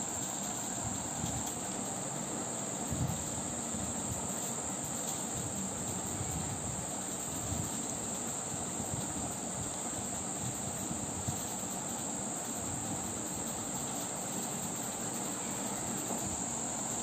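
A steady high-pitched drone with a few faint soft knocks from the knitting needles and yarn being handled.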